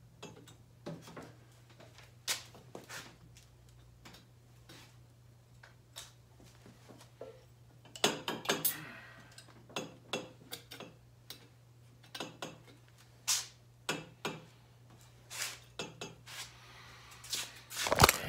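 Metal tools and exhaust parts clinking and knocking as they are handled, in irregular taps that bunch up about halfway through and are loudest near the end, over a steady low hum.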